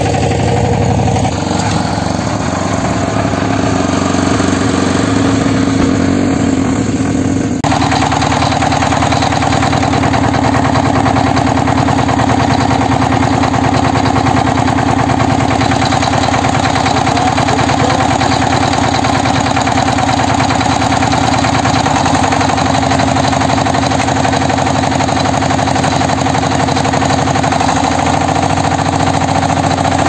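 Kirloskar MegaT 15 power tiller's single-cylinder diesel engine running steadily. About eight seconds in, its sound changes abruptly and turns brighter.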